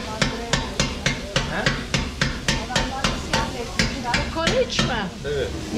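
A street-food cook's metal utensil striking a cutting surface in quick, even chopping strokes, about four a second. The strokes stop about five seconds in, and voices carry on underneath.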